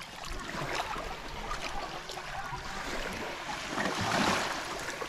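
Water sloshing and splashing as fish are rinsed by hand in a metal basin in the shallows, loudest about four seconds in.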